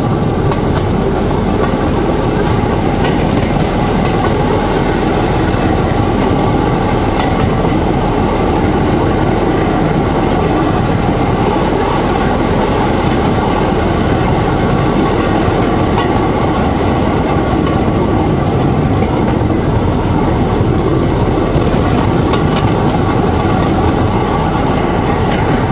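Motorized rail trolley running steadily along narrow-gauge track: an even engine drone mixed with the noise of its wheels rolling on the rails.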